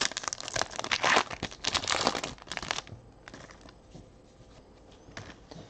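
Foil wrapper of a 2018 Panini Rookies & Stars football card pack being torn open and crinkled for about three seconds, then fainter handling of the cards.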